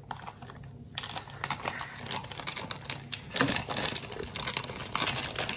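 Thin plastic packaging bag crinkling and crackling as it is handled and pulled open by hand: a quick run of small crackles, starting about a second in.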